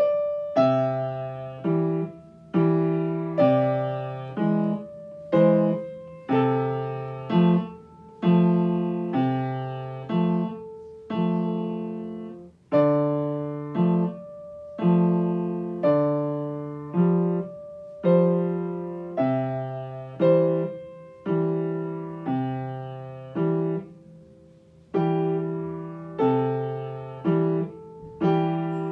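Yamaha upright piano played by a child: a simple, slow beginner's piece, with bass notes and a melody on top. Notes and chords are struck about once a second and each rings and fades before the next, with one brief pause about two-thirds of the way through.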